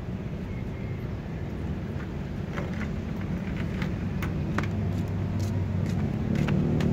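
A low, steady vehicle engine rumble that slowly grows louder. Scattered light clicks of footsteps in rubber slippers on concrete run over it.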